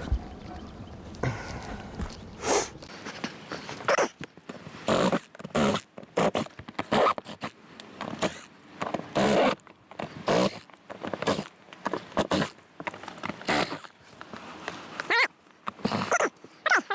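Screws being backed out of the old roof vent frame on a travel trailer roof: a long run of short, irregular rasping and squeaking bursts, about one or two a second, starting a couple of seconds in.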